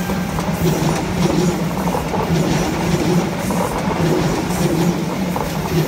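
Passenger train coaches rolling past close by: a steady rumble of steel wheels on the rails with irregular clicks.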